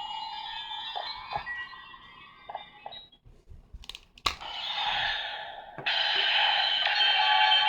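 Ultraman Nexus Evoltruster toy playing electronic sound effects through its small speaker, broken by sharp plastic clicks of its mechanism about four seconds in. A rushing effect follows, then a louder electronic effect sets in suddenly about six seconds in.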